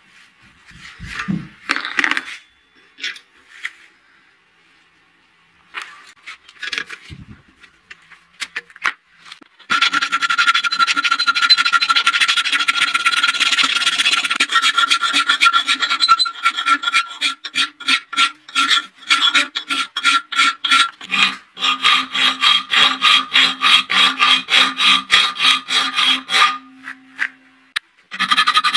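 Hand file rasping back and forth across a small metal blade at about three strokes a second, with a steady ringing tone from the metal under the strokes. The first ten seconds hold only scattered taps and handling knocks, and the filing starts after that.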